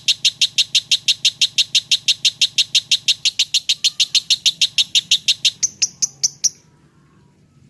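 Lovebird singing a rapid, even run of sharp chirps, about eight a second, in the fast 'konslet' chatter style. The run stops about six and a half seconds in.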